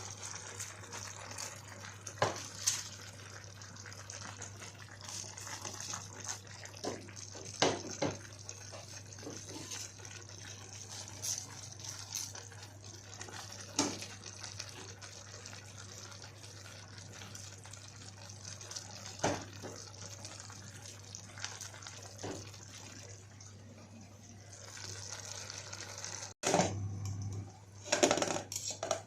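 Pot of water boiling with the noodles and cabbage in it, a steady bubbling hiss, with occasional short knocks and clinks.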